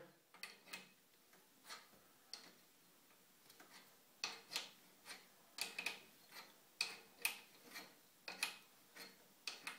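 Spanner clicking against the nut of a plumbing diverter valve as it is tightened in short turns onto the toilet's water supply: sharp, separate metallic clicks, sparse at first, then one or two a second from about four seconds in.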